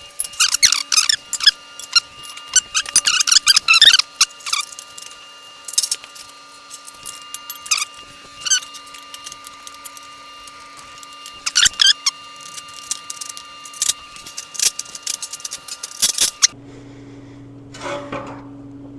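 Metal plow parts and hardware clinking and clattering during hand assembly, in irregular clusters of sharp metallic clicks with some ringing. About sixteen seconds in, this cuts off and a quieter steady low hum takes over.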